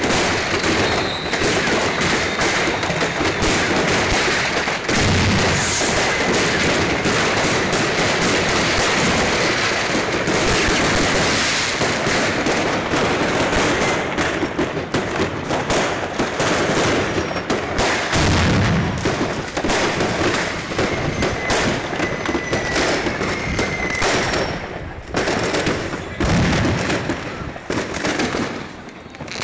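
Fireworks going off without a break: a dense crackle of many bangs, with a few deeper booms and thin whistles among them. The crackle thins to separate bangs near the end.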